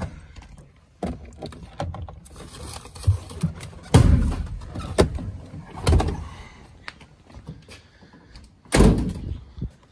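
A Suzuki Sierra's door being opened and handled as someone climbs out of the cab, with a series of knocks and thumps, then the door shut with a loud thud near the end.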